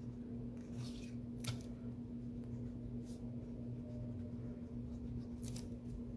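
Soft rustles and light taps of cardstock pieces being handled and pressed onto card fronts, a few short ones spread out, over a steady low hum.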